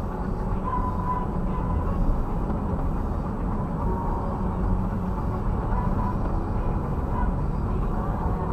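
Smart ForTwo driving, its engine and road noise a steady low rumble inside the cabin.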